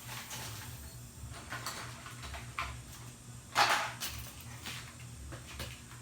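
Cardboard subwoofer box being handled: scattered light knocks and rustles, with one louder, short rasp about three and a half seconds in, over a steady low hum.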